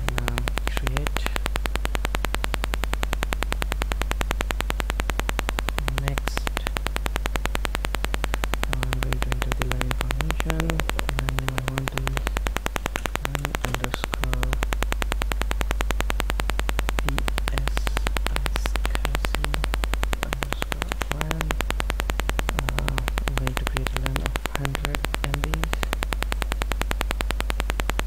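Steady electrical hum and fast buzzing noise from a faulty microphone, with scattered short, low blips on top of it.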